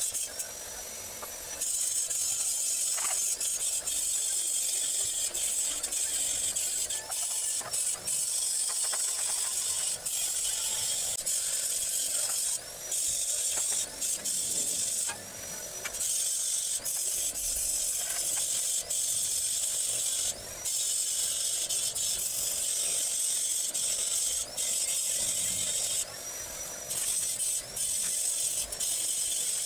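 Electric arc welding on steel square tubing: the crackling hiss of the arc as tack welds are laid. It stops and restarts several times with short pauses between welds.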